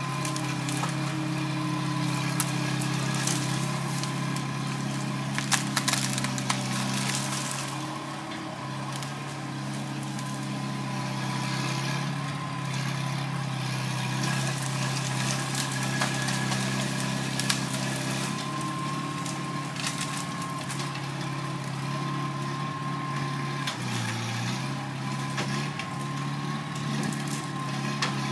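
Bobcat skid steer engine running steadily, with a thin steady whine over it. A few sharp knocks come about six seconds in, and the engine note dips briefly about 24 seconds in.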